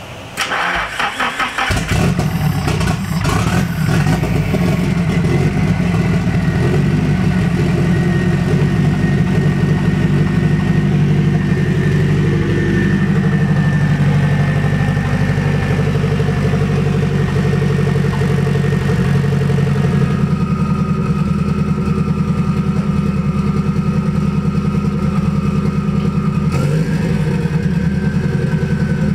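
Turbocharged four-cylinder engine of a red Nissan 240SX being cranked over by its starter for about a second and a half, then catching and settling into a steady idle.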